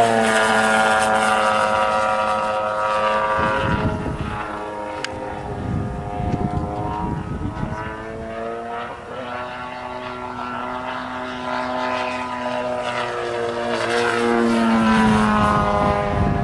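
Radio-controlled model airplane flying overhead, its engine and propeller giving a steady pitched note. The pitch drops as the plane passes, once at the start and again near the end, and the note is weaker in the middle as the plane moves off.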